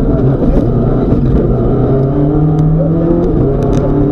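Rally car engine heard from inside the cabin, running hard on a stage, its pitch holding and then shifting about three seconds in. A couple of sharp clicks come near the end.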